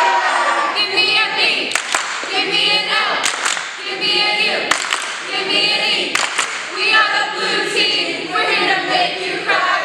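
A group of teenagers singing together without instruments, with a few sharp hand claps among the voices.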